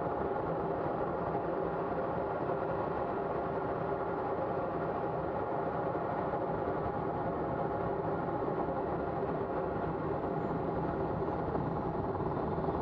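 Steady drone and rush of air inside the cockpit of a Colomban CriCri jet descending low, even and unchanging throughout.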